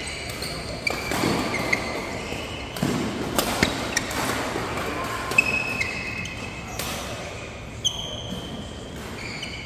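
Badminton doubles rally: a string of sharp, irregular racket-on-shuttlecock hits, mixed with short high squeaks of players' shoes on the court mat.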